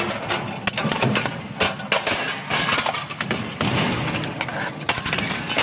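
Industrial crusher breaking up material: a dense, irregular run of cracks, thuds and crashes.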